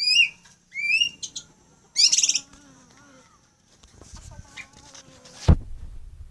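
Caged songbirds calling: a few short rising whistled notes and a quick chattering burst in the first two and a half seconds, then fainter calls. A sharp knock about five and a half seconds in is the loudest sound.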